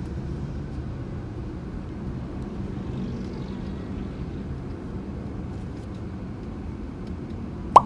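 Steady engine and road noise heard inside the cabin of a moving Chevrolet car, with a low engine hum. A single sharp click near the end.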